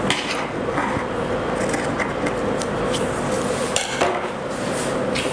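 Scissors snipping and clicking through cloth, then set down on a wooden tabletop with a clatter about four seconds in, over a steady background hiss with a faint hum.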